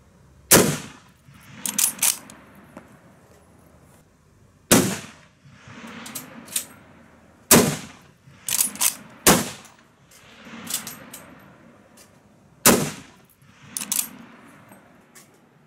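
A string of about five loud shots from a Schmidt-Rubin K11 straight-pull rifle in 7.5x55 Swiss, fired a few seconds apart. Between shots the straight-pull bolt is cycled and gives a quick double metallic clack.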